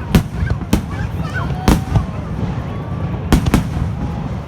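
Fireworks shells bursting close by: five sharp bangs at uneven intervals, two of them in quick succession about three seconds in, over a constant low rumble.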